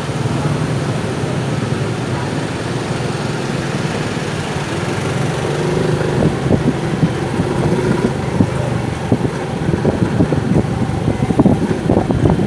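Motorcycle engine running steadily while riding. About halfway through, rough buffeting and irregular thumps join it and grow through the rest.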